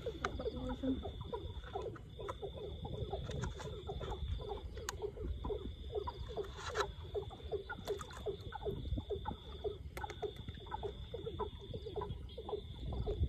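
Frogs calling in a chorus of short, quickly repeated croaks, several a second, over a steady high insect trill that breaks off every few seconds. A few faint clicks come through now and then.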